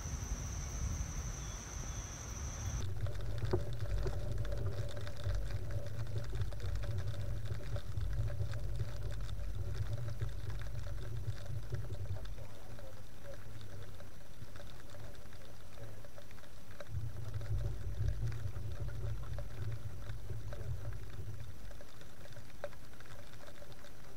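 A high, steady insect trill cuts off abruptly about three seconds in. Then water patters and trickles over a low rumble that swells and eases twice.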